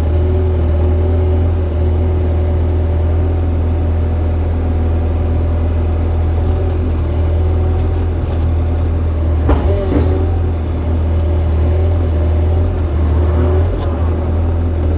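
Excavator's diesel engine running steadily under load with a low drone, and two short knocks about ten seconds in.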